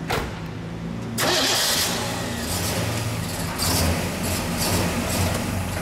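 1969 Pontiac GTO Judge's V8 idling with a steady low rumble, growing louder from about a second in as the car is eased back under power.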